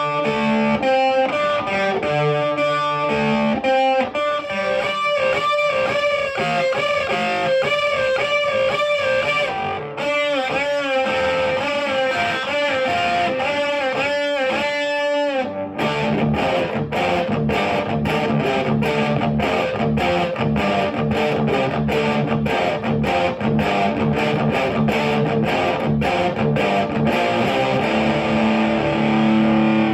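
Distorted electric guitar, a Jackson Soloist Custom with a Seymour Duncan pickup through a Marshall JCM900 4502 combo amp with Celestion G12T-75 speakers. It plays lead lines with bends and wide vibrato for about the first half. From about halfway it switches to fast, evenly picked notes and ends on a held chord.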